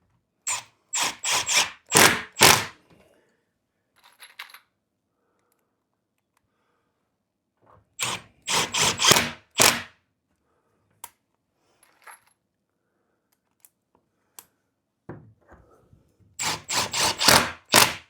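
Power drill-driver sinking confirmat screws into melamine-faced particle board, in three runs of short, stuttering bursts, each about two seconds long.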